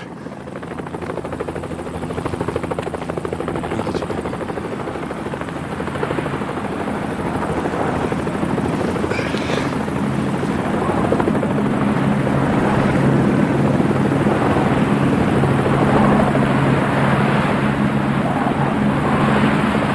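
A steady mechanical drone with a fast, even chopping beat, growing gradually louder.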